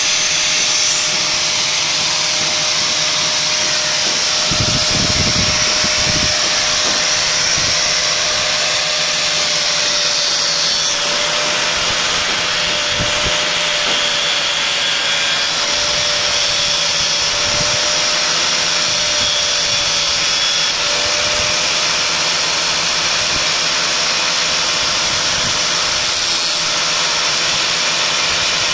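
Angle grinder clamped in a bench vise, running steadily with a constant motor whine, while the tip of a twist drill bit is ground against its abrasive disc to sharpen it, with a continuous hiss of metal being ground.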